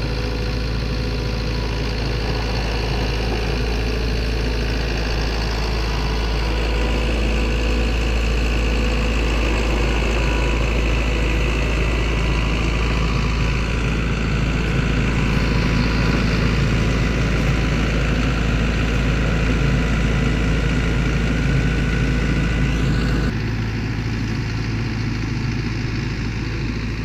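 Gehl skid-steer loader's engine running steadily as the machine lifts and carries a wooden deck on its forks, a little louder through the middle; the low rumble drops suddenly about 23 seconds in.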